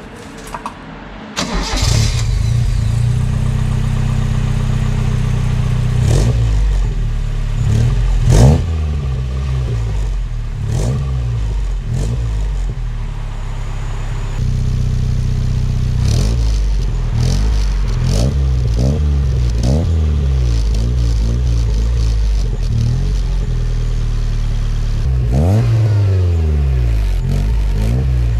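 Toyota MR2 AW11's 4A-GE four-cylinder engine starting about a second and a half in, through a Don Silencioso stainless steel exhaust with a 200-cell sports catalytic converter. It then idles with repeated quick throttle blips, each rising and falling in pitch, several in quick succession past the middle.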